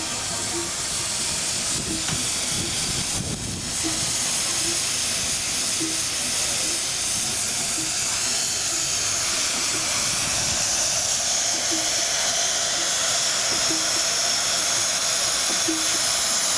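Steam hissing steadily from a vintage steam road roller, growing louder about four seconds in, with faint light ticks repeating underneath.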